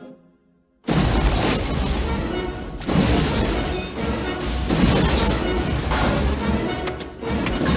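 Film sound effects: after a quiet second, a sudden loud crash, then a run of heavy crashing, smashing blows that surge again about every two seconds, as pointed metal rods break through a wall in a cloud of dust, over music.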